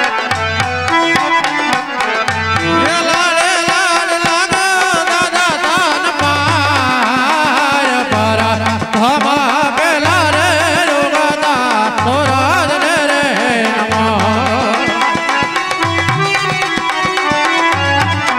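Live Gujarati devotional music: a man sings a long, heavily ornamented line over a steady drum rhythm, with only the instruments playing before and after the sung phrase.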